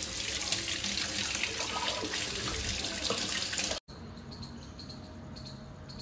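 A kitchen tap running, water pouring and splashing as a mango is rinsed under it. About four seconds in it cuts off abruptly, leaving a faint outdoor background.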